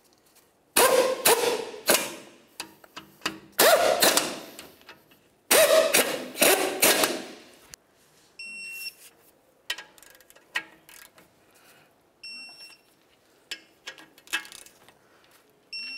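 A cordless ratchet runs in three loud bursts, driving the lower ball-joint bolt and nuts down until they bottom out. Then a digital torque wrench clicks as it is pulled and gives three short high beeps, its signal that the set torque of 55 ft-lb has been reached.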